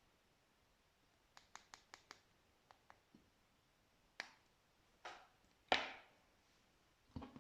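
Slime being squeezed and pressed by hand: a quick run of small clicking pops, a couple more single pops, then several louder squelches, the loudest about two-thirds of the way through.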